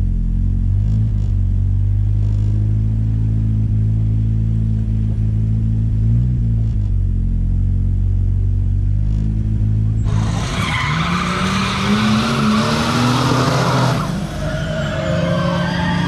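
Car engine running steadily with a low note that swells briefly once or twice. About ten seconds in, the tires break into a loud squeal and skid while the engine revs up. The noise eases about four seconds later but goes on.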